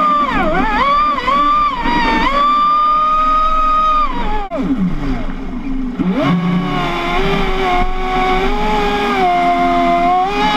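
Traxxas Spartan RC boat's brushless electric motor on a 6S LiPo, whining as the throttle is worked: wavering at first, held high for a couple of seconds, falling away steeply when the throttle is cut about four and a half seconds in, then rising again to a steady whine about a second later. The rush of spray off the hull runs underneath.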